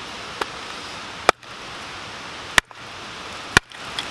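A hatchet splitting a hard piece of firewood on a wooden stump. The blade is set in the stick and both are knocked down onto the block: a faint tap, then three sharp knocks about a second apart, over a steady background hiss.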